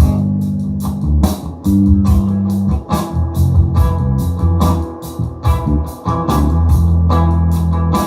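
Blues-rock music with electric guitar, bass, organ and a steady drum beat, played back through a QSC K8 8-inch powered PA speaker.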